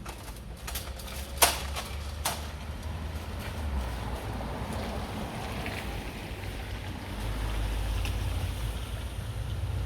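A few sharp knocks, the loudest about a second and a half in, then low rumbling with wind buffeting the microphone, growing stronger near the end.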